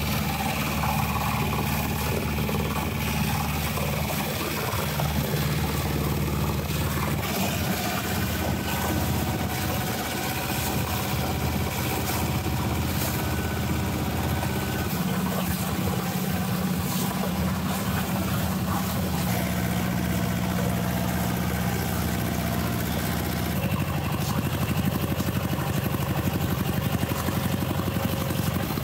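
Small Mitsubishi marine diesel engine (750 cc, 18 hp) running steadily, pushing a small open boat along, over the rush of water; its note shifts slightly a few times.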